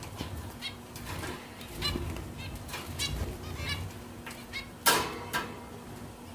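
A flock of zebra finches calling: many short, repeated calls overlapping one another, with some wing flutter. A sharp knock about five seconds in is the loudest sound.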